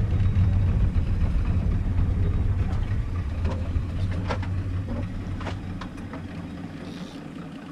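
Boat engine running steadily with a low hum that dies down near the end, with a few short sharp knocks along the way.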